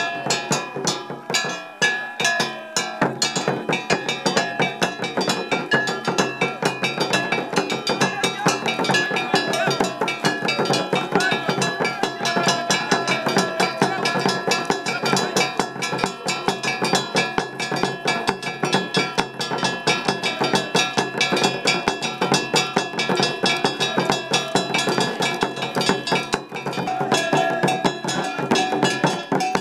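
Fast, dense drumming with clattering percussion, the music of a Dogon mask dance.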